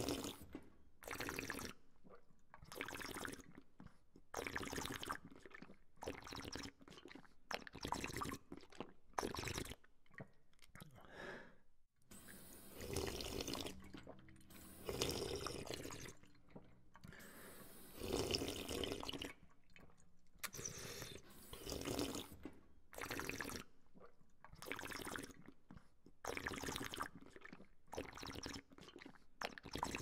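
Someone drinking from a water fountain: the stream splashing and the drinker slurping, in short irregular bursts about every second or two with brief pauses between.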